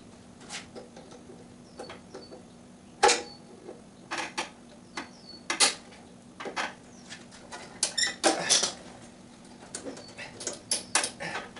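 Metal clicks and clanks of hands and tools working the bolts and tubes of a Honda HR194 push mower's handle as it is taken off. The knocks come irregularly, with one brief metallic ring about eight seconds in.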